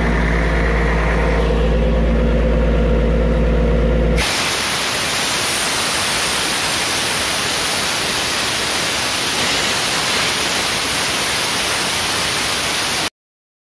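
The diesel engine of an Airman screw air compressor running steadily. About four seconds in, the sound changes abruptly to a loud, even rushing noise as the engine runs faster, and near the end it cuts off to silence.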